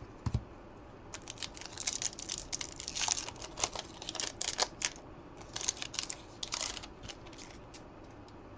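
Crinkling and crackling of a trading card pack's foil wrapper being handled, with quick clicks and snaps of cards being flicked through by hand.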